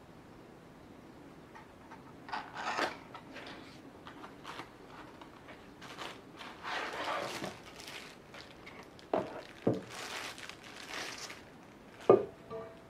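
Cardboard packaging rustling and scraping as a stainless-steel bottle is worked out of its paper box, with a couple of light knocks. Near the end the bottle is set down on a wooden table with a sharp knock and a brief metallic ring.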